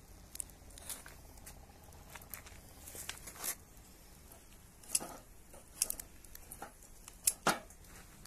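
Metal tongs clicking against a grill grate while roasted chestnuts are picked off the charcoal and dropped into a paper cone, with paper crinkling. Scattered short clicks and rustles, the sharpest about five seconds in and twice more near the end.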